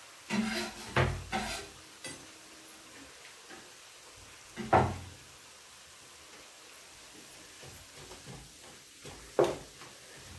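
Vegetables sautéing faintly in a kadhai, broken by a few scattered knocks and clatters of kitchen utensils: a cluster near the start, one about midway, and one shortly before the end as stirring with a wooden spatula begins.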